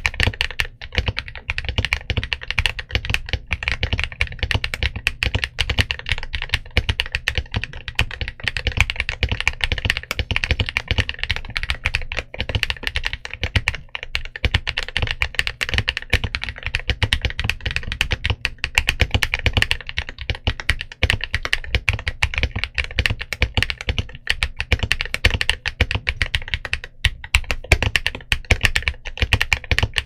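Continuous fast typing on an XVX M68 mechanical keyboard with a walnut wood case, Medium Purple switches and MOA dye-sub PBT keycaps: a dense, unbroken run of keystrokes.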